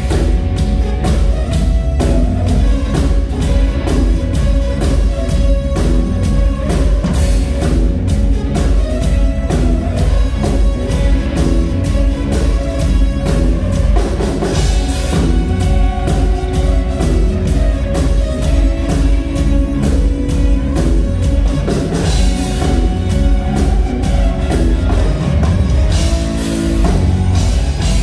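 Rock band playing loud instrumental music: a steady drum-kit beat under electric guitars.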